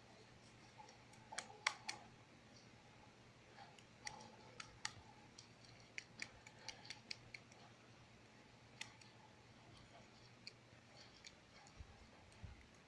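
Near silence broken by faint, irregular clicks and taps, about a dozen of them, the loudest two close together near the start, over a faint low hum that stops near the end.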